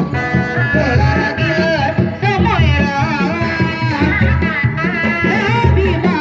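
Reak ensemble music: drums beat out a steady repeating pattern under a high, wavering melody that bends and slides in pitch.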